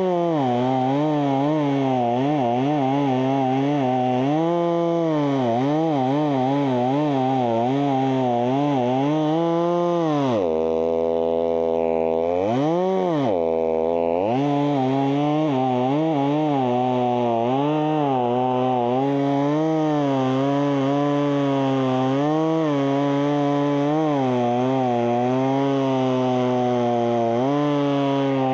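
Stihl top-handle two-stroke chainsaw running under load in a eucalyptus trunk, its engine speed rising and falling as it cuts. About ten seconds in it drops to idle for a few seconds with one quick blip of the throttle, then revs back up and carries on cutting.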